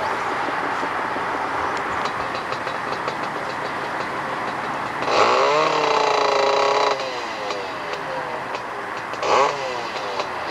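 500cc racing ATV engine revving hard at the start line for about two seconds, then dropping back, with one short blip of the throttle near the end. A steady background noise runs underneath.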